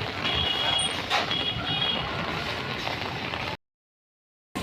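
Steady outdoor street noise during heavy rain, a wash of rain and traffic, with a few short high beeps or chirps in the first two seconds. The sound drops to dead silence for about a second near the end.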